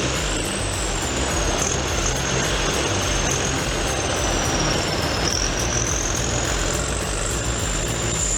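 Heavy diesel earthmoving machinery running steadily, a dense engine rumble with a thin high whine drifting slowly up and down in pitch.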